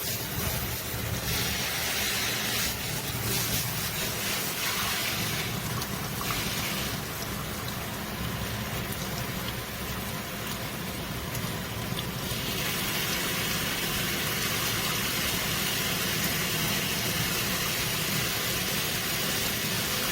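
Water spraying steadily from a faucet sprayer attachment's shower head, a continuous hiss of running water that brightens and dulls a few times.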